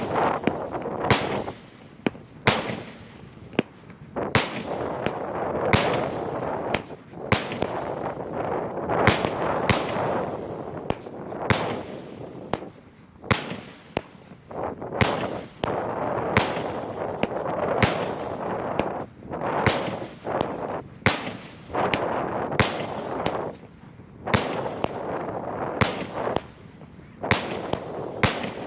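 Firework salute cake firing shot after shot, each salute going off with a sharp bang, about one a second, with echo rolling between the reports.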